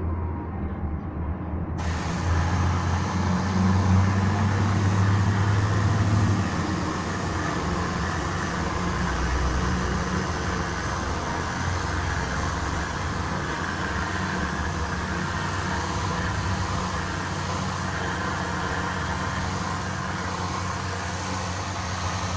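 Tornador air-powered cleaning gun blasting compressed air and cleaning fluid against a car's cloth headliner: a steady loud hiss that starts about two seconds in, over a low hum.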